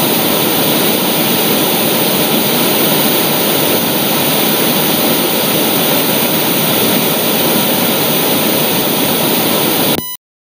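Loud, steady static-like hiss of white noise that cuts off suddenly near the end.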